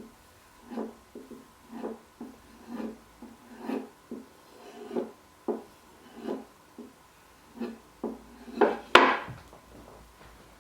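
Knife blade being stropped on a leather strop: a run of short rubbing strokes, about one or two a second, to finish and polish a convex edge. A sharp click about nine seconds in.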